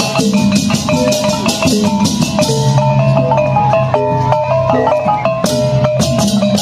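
Balinese baleganjur processional gamelan: rows of small kettle gongs (reyong) struck in fast interlocking patterns, with frequent crashing ceng-ceng hand cymbals, a drum and a low gong ringing beneath.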